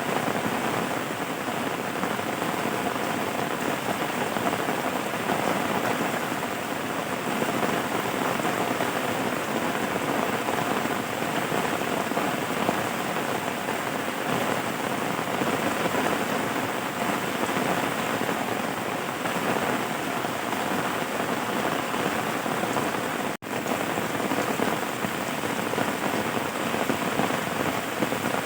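Steady rain, an even hiss of rainfall that cuts out for a split second about two-thirds of the way through.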